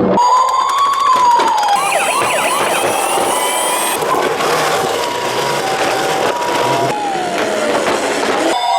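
Emergency-vehicle siren sounds: a wailing siren gliding up and down, overlapped by a Japanese ambulance's two-tone 'pee-po' siren alternating between two pitches, with clicks and clatter in the first couple of seconds.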